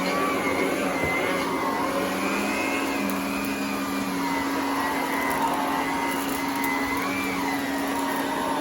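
Electrolux Model 1205 canister vacuum running while vacuuming carpet through an electric hose and power nozzle. It makes a steady motor hum and whine whose pitch drifts slightly up and down as the nozzle works the carpet.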